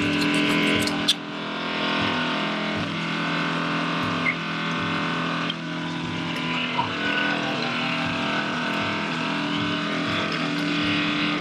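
A motor running with a steady drone, with a few sharp clicks in the first second.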